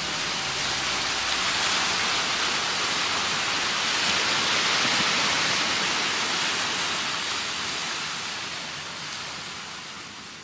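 A steady rushing hiss, like spraying water or wind, that swells in the middle and then fades away toward the end.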